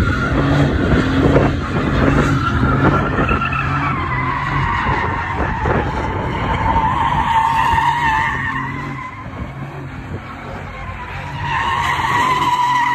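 Pickup truck doing donuts: engine revving high while its spinning rear tires squeal on the asphalt. The squeal wavers in pitch, eases off about two-thirds of the way through, then swells again near the end.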